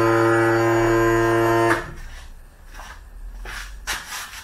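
Outboard motor's electric power trim-and-tilt pump running with a steady hum while it raises the motor, cutting off abruptly under two seconds in. A few light knocks follow near the end.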